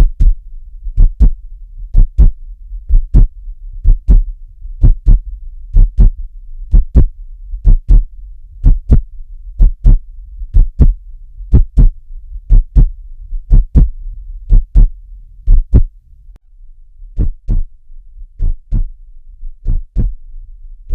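Heartbeat: paired low thumps, about one pair a second, with a faint steady hum beneath and a short break about sixteen seconds in.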